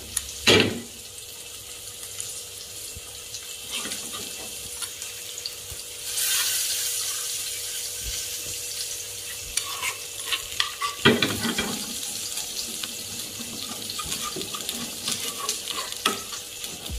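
Creamy sauce sizzling in a hot pan over fried garlic while a metal spoon stirs and scrapes through it. There is a sharp sound about half a second in, and the sizzle grows louder about six seconds in. Scraping strokes of the spoon come every few seconds, the strongest about eleven seconds in.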